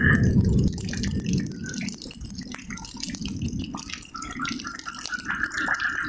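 Tropical rain falling in close drips and patters over a low rumble that is strongest in the first second. A rattling frog chorus stops at the start and comes back near the end.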